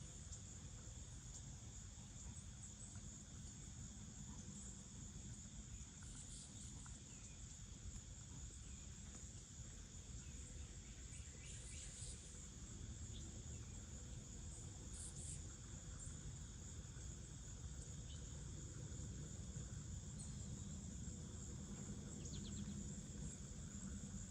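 Faint, steady high-pitched chorus of insects, with a low rumble of wind underneath.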